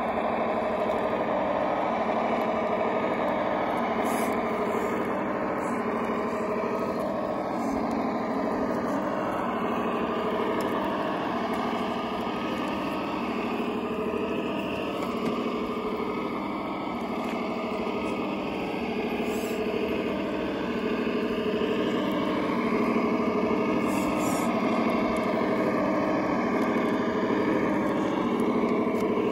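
Electric motor and gearing of a scale RC crawler truck running as it drives, a steady whine whose pitch wavers with the throttle.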